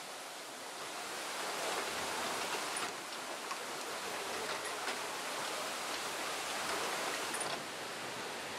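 Steady rush of flowing water, a stream or cascade, a little louder for most of the middle, with a few faint ticks.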